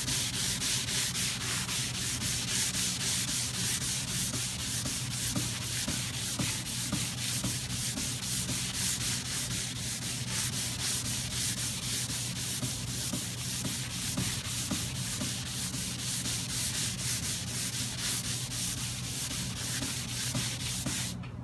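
A balled-up wad of wood shavings rubbed briskly back and forth over a hand-planed hardwood panel, burnishing the freshly planed surface. The rapid scrubbing strokes stop suddenly just before the end.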